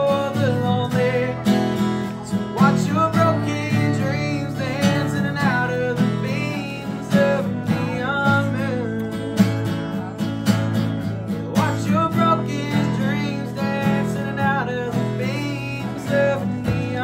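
Acoustic guitar strummed by hand while a man sings over it.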